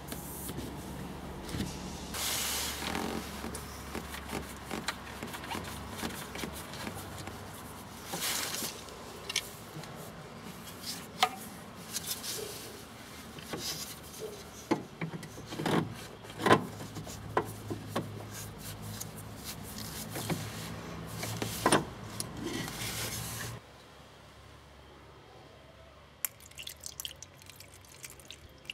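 Steady running noise with scattered clicks and knocks as old coolant drains from the radiator through a garden hose. It cuts off suddenly near the end, followed by faint trickling of new coolant poured through a funnel into the expansion tank.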